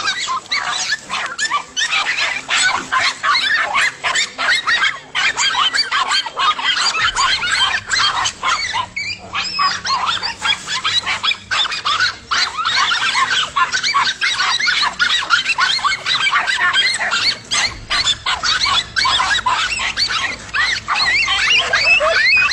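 Several dogs barking and yelping in rapid, overlapping bursts with hardly a pause.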